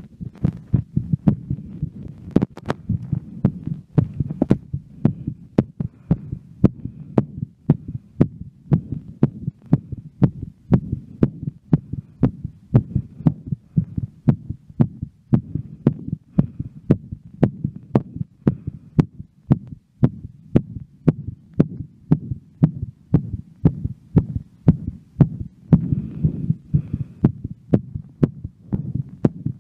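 A woman's heartbeat, raised after a workout, beating fast and evenly at about two strokes a second over a low rumble.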